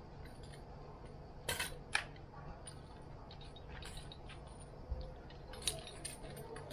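Several short metallic clinks and clicks from small fishing tackle being handled, the loudest pair about a second and a half to two seconds in and a few more near the end, over a faint steady low hum.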